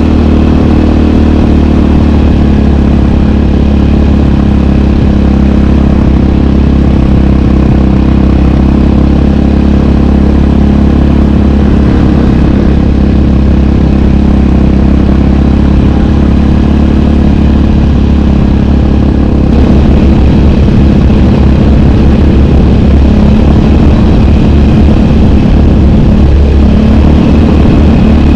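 Yamaha sport ATV's single-cylinder engine running loud at a steady pitch, getting a little louder and rougher about two-thirds of the way through.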